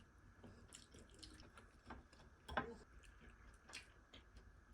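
Faint eating sounds: chewing with scattered small clicks, one sharper click about halfway.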